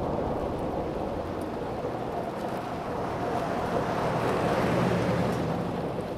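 An SUV driving past on rain-soaked pavement: the hiss of its tyres on the wet road grows as it approaches, is loudest about four to five seconds in, then fades as it goes by.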